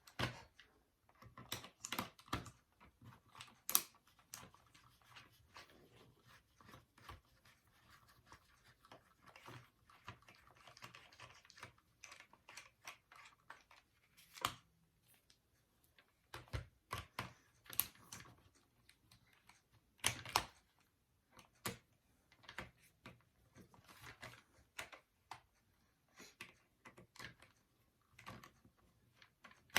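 Irregular small clicks and taps of a screwdriver and loose screws against the plastic shell of an X-Shot toy dart pistol being unscrewed, with a short stretch of rustling handling about a third of the way in.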